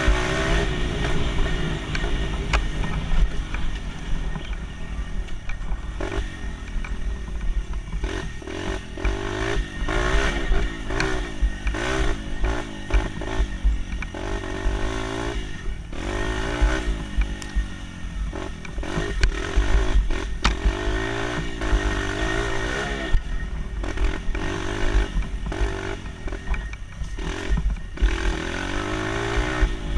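Dirt bike engine revving up and down again and again as it is ridden, with frequent short knocks and rattles.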